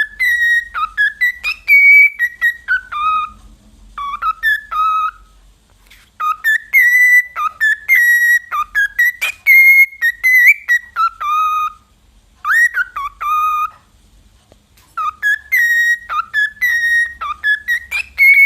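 A bird whistling: runs of short, clear notes that slide up and down, in phrases broken by brief pauses.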